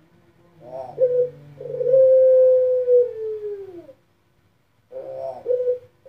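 A puter pelung dove, a domestic collared dove kept for its long drawn-out coo, cooing in its cage: a few short stuttering notes about a second in, then one long held coo that falls in pitch at its end. After a second's pause the next phrase starts with its short notes near the end.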